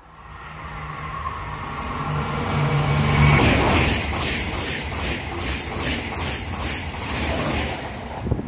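TGV 2N2 (Euroduplex) double-deck high-speed train passing through at speed. A rising rush builds as it approaches, then a loud, rhythmic beat of wheel noise comes as the bogies go by, easing off near the end as the train clears.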